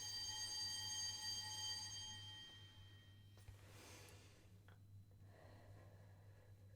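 A faint bell-like chime rings and fades away over the first few seconds, followed by a soft breathy rush and a single click.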